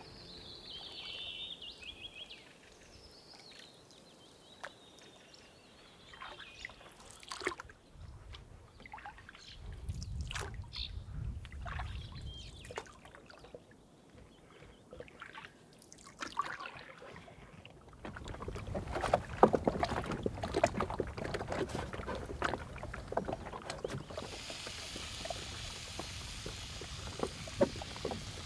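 Canoe being paddled: paddle strokes and water splashing and lapping against the hull, in scattered bursts at first and then dense and loudest in the second half. Near the end a steady hiss takes over.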